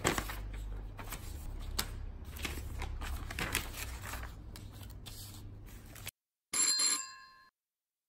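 Papers and files being handled on a desk, with rustling and light clicks over a low hum. Near the end a desk call bell is struck once, ringing and fading within about a second.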